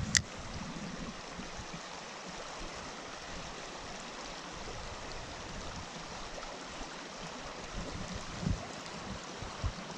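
Small stream water running over rocks, a steady rushing. A sharp click right at the start and a couple of soft low bumps near the end.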